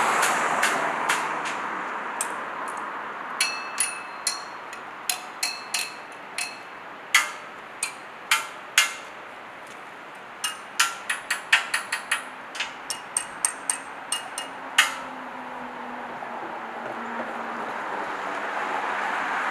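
A metal roadside handrail struck over and over with a rod: a couple of dozen sharp, irregular strikes, many with a short ringing tone, starting about two seconds in and stopping about fifteen seconds in. A car passes at the start, and another approaches near the end.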